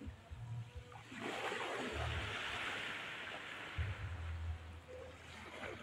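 Small waves washing onto a pebble beach. The surf hiss swells about a second in and eases off a few seconds later, with low rumbling bumps underneath.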